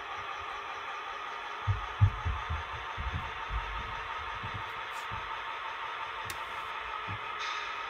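Model railroad locomotive running on the layout with a steady hum. A cluster of low knocks comes about two to three and a half seconds in.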